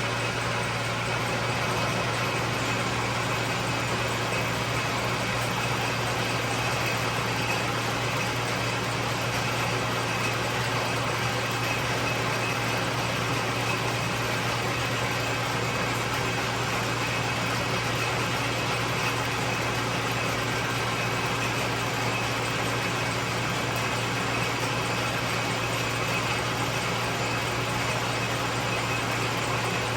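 1943 South Bend lathe running steadily while cutting a deep internal thread: an even mechanical whir of motor and gearing over a strong low hum, with no change in speed or load.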